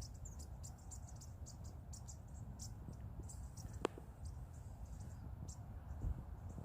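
A flock of tiny songbirds giving many short, high, thin peeps, with one sharp click a little before four seconds in, over a low rumble.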